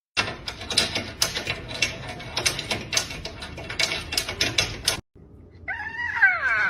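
Rapid irregular clicking and tapping for about five seconds, then, after a cut, a cat's meow near the end, one call that rises briefly and falls.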